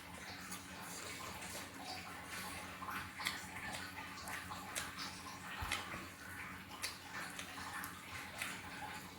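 Close-up eating sounds of fried fish: wet chewing and irregular mouth smacks and clicks, over a faint steady low hum.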